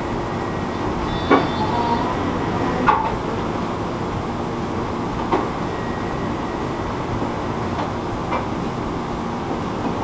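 Steady rumble of machinery running in a large iron foundry hall, with a few sharp knocks scattered through it.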